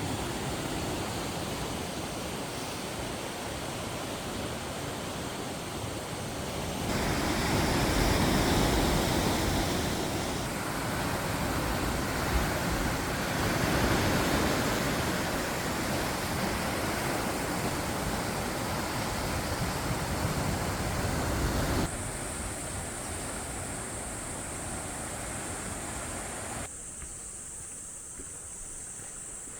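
Ocean surf and wind noise, in several short clips that change abruptly. About two-thirds of the way through, a high steady insect drone comes in.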